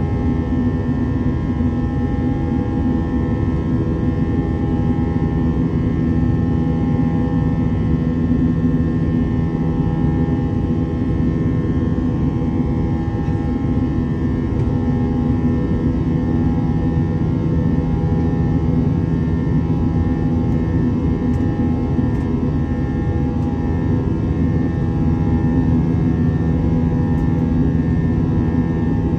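Jet airliner's turbofan engines running steadily during the climb after takeoff, heard from inside the cabin: a constant roar with several steady hums in it.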